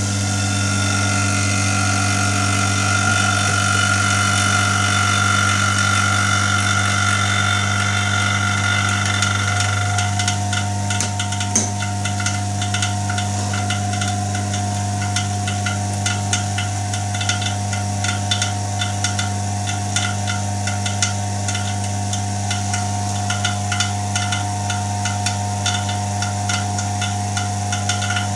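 Electric rotary vane vacuum pump running steadily with a loud low hum after being switched on, pumping down the fusor's glass vacuum chamber. About ten seconds in, a fast, regular ticking joins the hum.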